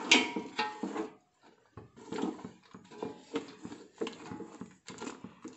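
Wooden spatula stirring chicken in a wet coriander-mint paste, with irregular scrapes and knocks against the side of a steel pot and a short pause about a second in.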